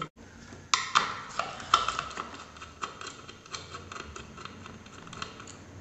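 Irregular small metal clicks and ticks of a cross-head screwdriver and fingers undoing the screws and nuts on a ceiling fan's motor housing, starting just under a second in.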